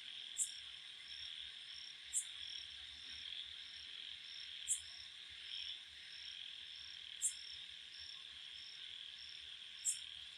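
Faint background crickets and other insects chirping steadily: a high pulsing trill about three times a second over a constant buzz, with a sharper high chirp about every two and a half seconds.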